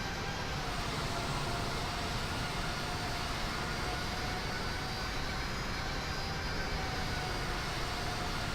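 Airbus A380 jet engines running: a steady rush of noise with a faint, steady high whine over it.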